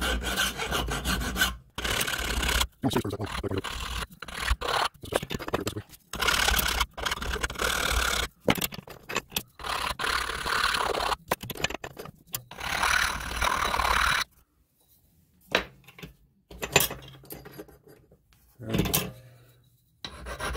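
Hand deburring of a laser-cut metal indexing plate in a vise: a flat file, then an abrasive stone, scraping along its edges in rapid back-and-forth strokes with short pauses between runs.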